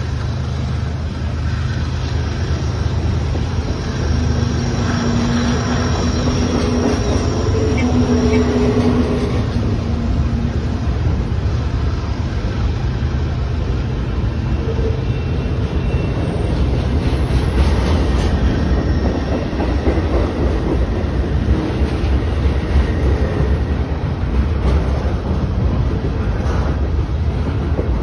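Double-stack intermodal container cars of a freight train rolling past on the rails, a steady loud rumble of wheels on track. There is some wheel squeal in roughly the first ten seconds.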